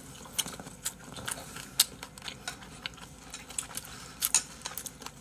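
A person chewing a mouthful of kimchi fried rice close to the microphone, with irregular soft clicks and ticks of mouth and utensil.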